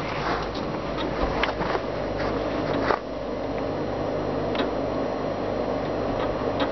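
A steady mechanical hum, with sharp clicks and knocks over the first few seconds, the loudest about three seconds in, from handling the snow-caked steel compaction drag and its clamp and chain fastenings on the trailer.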